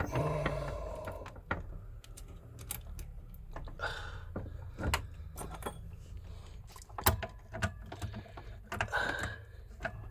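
Scattered clicks and light metallic clinks of hand tools and a cable being worked into a terminal.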